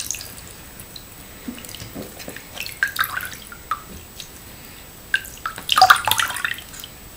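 Water dripping and splashing into a sink of soapy water as a soaked plush toy is squeezed out: scattered drips, with a louder burst of splashing about six seconds in.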